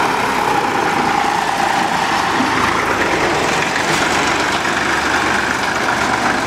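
Vintage farm tractors' engines running steadily as a line of the tractors drives past.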